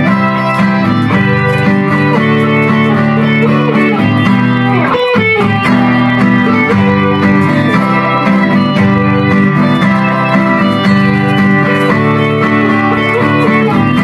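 Background music led by guitar, steady and loud, with a brief falling sweep about five seconds in.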